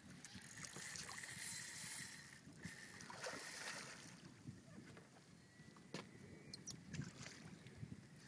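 Faint water and wind noise, with a splash about three seconds in as a hooked redfish thrashes at the surface.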